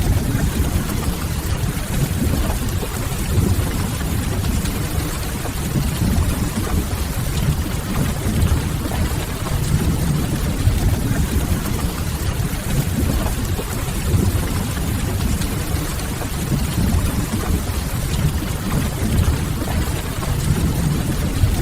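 Steady rain on a window, with a deep low rumble underneath that does not let up.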